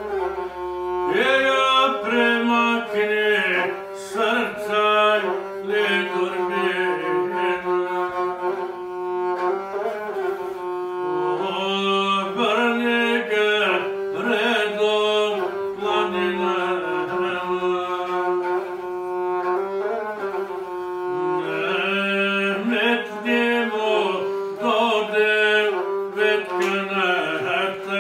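A gusle, the Montenegrin single-string bowed lute, played with its bow in a steady sustained drone with ornamented pitch turns, accompanying a man singing in the traditional guslar style.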